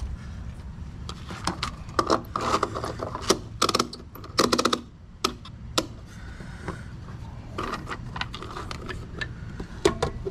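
Irregular sharp clicks and clatters of small mechanical parts being handled, most of them bunched in the first half, over a steady low hum.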